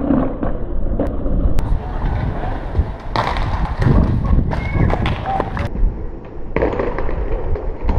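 Aggressive inline skates rolling and grinding along concrete ledges, with thuds from landings, heard close up on a GoPro with wind rumbling on its microphone. The sound changes abruptly several times as short clips are cut together.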